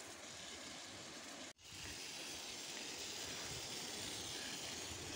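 Faint, steady outdoor background hiss with no distinct event, broken by a brief dropout about a second and a half in.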